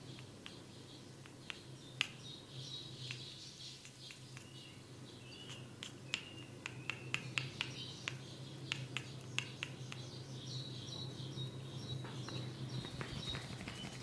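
Sharp, irregular clicks and taps, bunched most densely between about six and nine and a half seconds in, over birds chirping in the background and a low steady hum.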